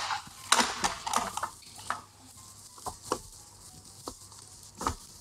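Knocks and clatter of a stand mixer's stainless steel bowl and tilting head as dough is handled and pulled out of the bowl: a busy cluster of knocks in the first second and a half, then a few scattered single knocks.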